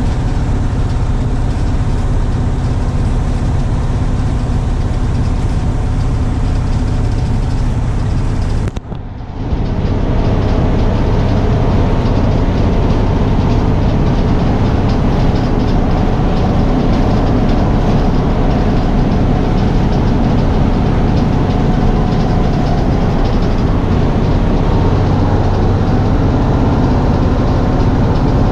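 1971 Crown Supercoach tandem-axle school bus driving down the road, heard from inside the cabin: a steady low engine drone mixed with road and body noise. The sound briefly drops out about nine seconds in, then the same steady running carries on.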